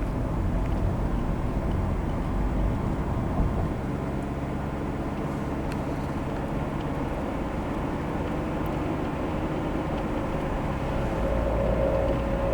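2001 Dodge Caravan with a 2.4-litre engine and 31TH automatic transmission driving at speed, a steady rumble of engine and road noise. Near the end a steady droning tone grows louder: the grinding that comes up under acceleration around 50 mph since the transmission rebuild, which the owner suspects may be something other than the transmission.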